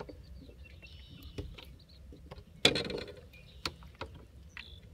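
Light knocks and clicks of a redfish being handled and lifted aboard a small fishing boat, with a louder noisy burst lasting about a third of a second a little past halfway.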